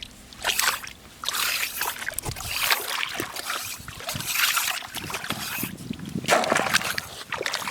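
Shallow seawater splashing and sloshing in irregular spells on a wet tidal flat, with a few short knocks.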